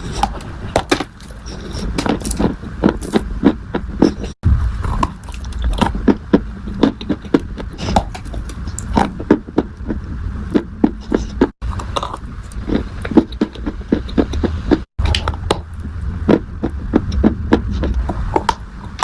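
Dried clay being crunched up close: dense, irregular crackles and snaps over a low rumble. The sound cuts out briefly three times.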